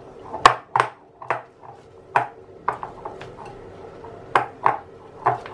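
Spoon beating a thick besan (gram-flour) dough in a glass bowl: irregular clinks of the spoon against the glass, about two a second.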